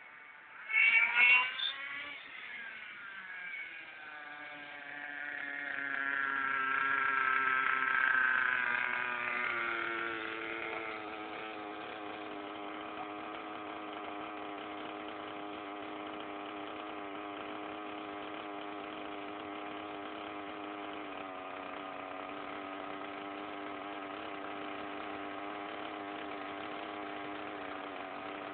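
Small two-stroke nitro engine of an RC monster truck, blipped twice about a second in. It then runs louder for several seconds with its pitch slowly dropping, and settles into a steady idle for the rest.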